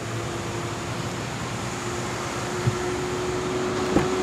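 A steady hum with one low, even tone runs throughout. About four seconds in, the front door handle of a Mercedes-Benz GLA45 AMG is pulled and the door latch releases with a sharp click.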